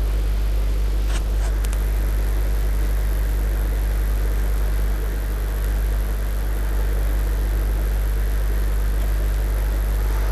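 A steady low hum with a faint hiss over it, unchanging throughout, with a few light clicks a little over a second in and again near the end.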